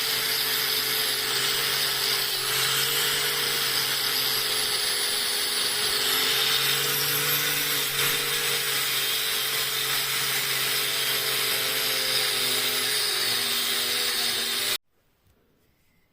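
Small electric power tool running steadily with a slightly wavering motor whine, stopping abruptly near the end.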